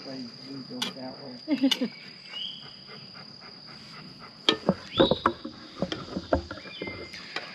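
A steady high-pitched insect drone, with scattered sharp clinks and knocks from a metal utensil working in a cast-iron Dutch oven. A cluster of louder knocks comes about two-thirds through.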